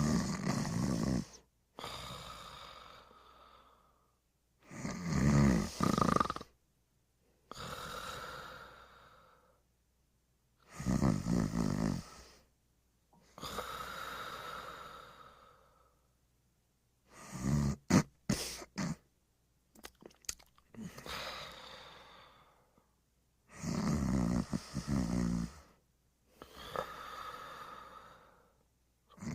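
Slow, regular snoring, about six breaths. Each breath is a loud, low snore followed by a softer breath that fades away, with a silent pause between breaths. One snore about halfway through breaks up into short snorts.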